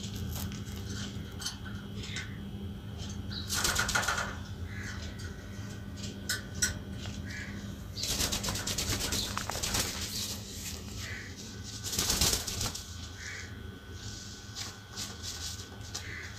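Pet parrot flapping its wings in short flurries: about four seconds in, for a couple of seconds around eight seconds in, and again about twelve seconds in, over a steady low hum.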